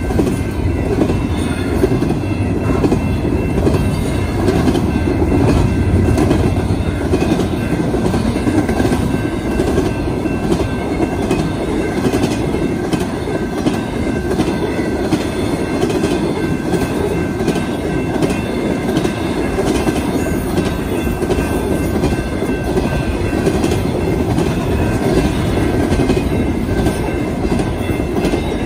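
BNSF intermodal freight train rolling steadily past a grade crossing: a continuous rumble of steel wheels on rail, with the clickety-clack of the wheels over the rail joints.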